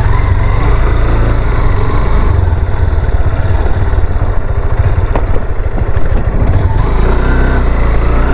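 A motor vehicle running, a loud, steady low rumble of engine and road noise.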